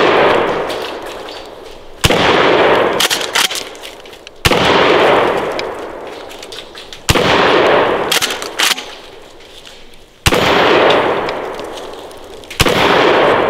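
Standard Manufacturing DP-12 double-barrel pump shotgun, 12-gauge, firing birdshot: five shots about two to three seconds apart, each with a long echoing decay. Lighter clicks and clanks come between shots.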